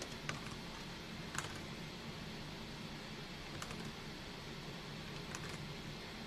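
Computer keyboard keys pressed only now and then: a few separate clicks, some in quick pairs, with long gaps between them, over a steady low background hum.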